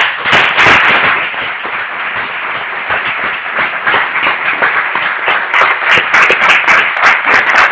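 Audience applauding: a dense, continuous patter of claps, with single sharper claps standing out more in the last few seconds.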